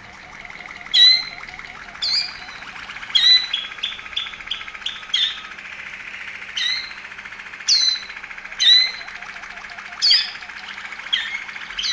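Waterslager (Malinois) canary singing a continuous fast rolling trill, with loud, sharp chirps breaking in about once a second.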